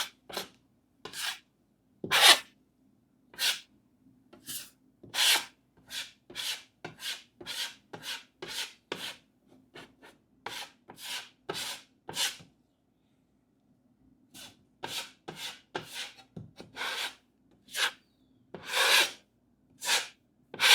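Putty knife scraping patching compound over small holes in sheetrock: a long series of short strokes, roughly one or two a second, pausing briefly about two-thirds of the way through.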